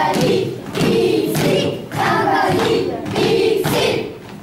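A group of children chanting together in loud, rhythmic bursts about once a second, with thuds among them.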